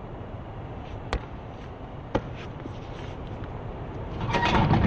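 Steady low outdoor background rumble, broken by two sharp knocks about a second apart. A louder, busier burst of noise follows near the end.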